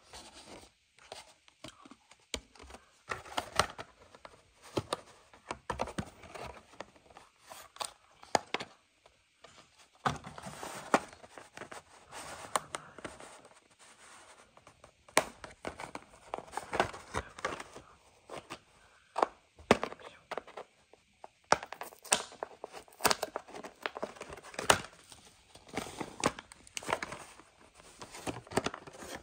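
Cardboard-and-plastic blister packaging of a Matchbox die-cast toy car being torn and pulled open by hand: irregular tearing and crinkling with many sharp clicks and snaps.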